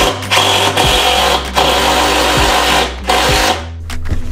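A handheld power tool motor runs steadily for about three seconds, then stops.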